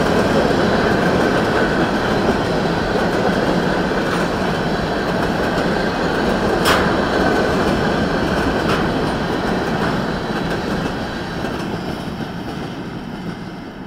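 Covered hopper cars of a frac sand freight train rolling past with a steady wheel rumble, a sharp clack about seven seconds in. The sound fades away as the last car goes by near the end.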